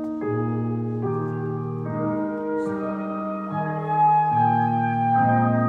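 Organ playing slow, sustained chords that change about once a second: an instrumental introduction to a choral piece.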